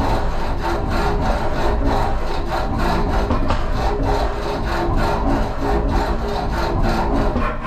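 Carbide scribing tip of a CNC engraving tool scratching into aluminium sheet: a steady, rough scraping with a fast pulse as the tool is driven along the line, with the machine running underneath.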